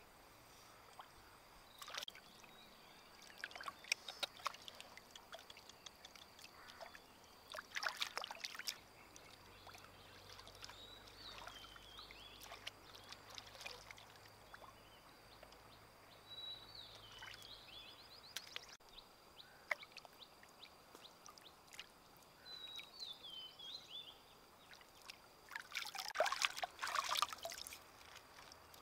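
Shallow stream water splashing and trickling as hands work in it, in a few short bursts, with brief bird chirps in between.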